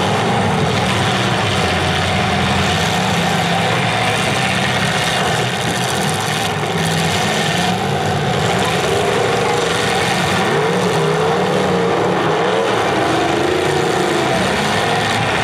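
Engines of several demolition derby cars running and revving together in a steady, loud din, with rising and falling pitch in the middle of the stretch.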